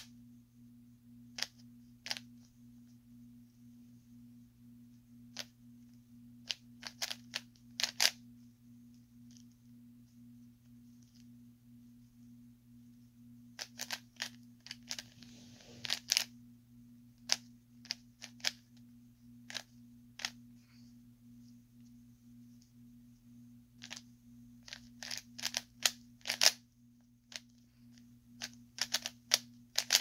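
3x3 Rubik's cube being turned by hand during a solve: quick clusters of sharp plastic clicks as the layers are rotated, with pauses between bursts, over a low steady hum.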